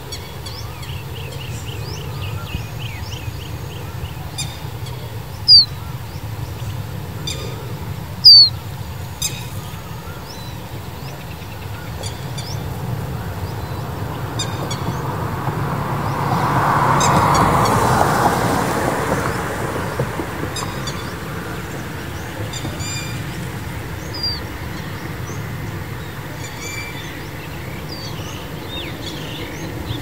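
Birds calling outdoors: scattered short high chirps, with two very loud sharp calls about five and eight seconds in. Midway through, a broad rushing noise swells and fades over a few seconds.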